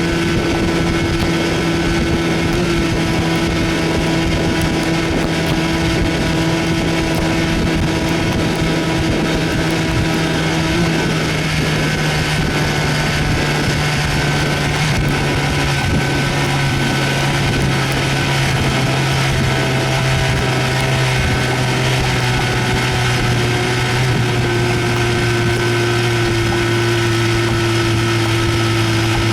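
1970 Evinrude 25 hp Sportster two-cylinder two-stroke outboard running under way, its steady engine note dropping in pitch in two steps, about a third of the way in and again near the end, as the motor slows. The owner says the exhaust baffle gasket leaks badly.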